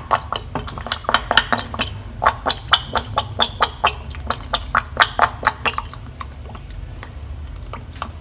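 Fish sauce spurting from a bottle's narrow dispensing cap and splashing into a bowl of sugar and seasonings: a quick run of sharp drips and splashes, about three a second, that stops about six seconds in.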